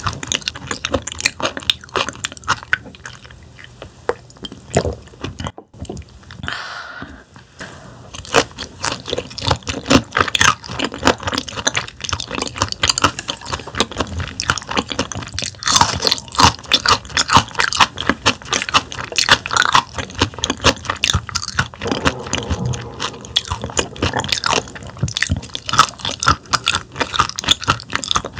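Close-miked chewing of thinly sliced raw damselfish sashimi: wet squishing and crunching of the fish's tough bones, with a brief pause about six seconds in.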